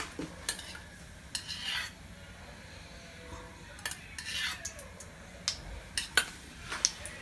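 A spoon stirring and scraping thick corn batter in a bowl, with scattered short clinks against the bowl.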